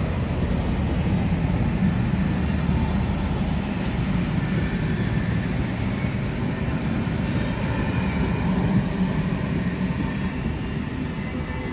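Union Pacific streamlined passenger cars rolling slowly past, a steady rumble of steel wheels on the rails with a faint wheel squeal now and then. The rumble eases a little near the end as the last cars go by.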